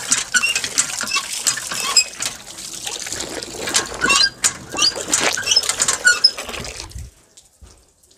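Hand pump being worked, its handle clanking and squeaking, as water gushes into a metal bucket. The pumping stops about seven seconds in.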